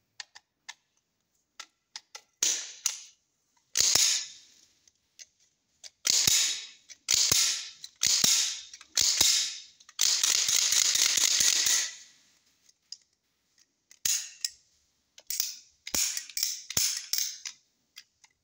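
Metal clicks, snaps and sliding rasps of a seven-shot .30 bore pistol's slide being racked and its hammer dry-fired, the rust-stiffened action now freshly oiled and moving freely. Sharp clicks come every second or so, with one longer rasp of about two seconds near the middle.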